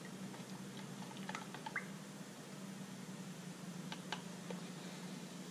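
Faint clicks and a short squeak from a popsicle stick stirring gel coat in a plastic mixing cup, a few about a second and a half in and more near four seconds, over a low steady hum.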